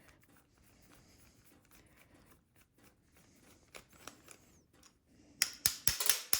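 Quiet handling of small metal carburetor parts with a few faint clicks, then, about five seconds in, a fast, even run of sharp clicks, about five a second, from a hand tool working on the carburetor.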